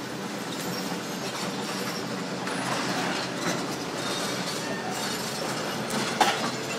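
Demolition excavator working: a steady engine note with metallic clanking and scraping, and a sharper clank about six seconds in.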